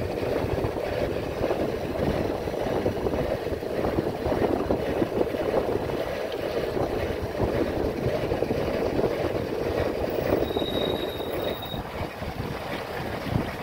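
Steady wind buffeting the microphone while riding a bike, a fluttering rush with no engine note in it. A brief high, thin tone sounds for about a second, roughly ten and a half seconds in.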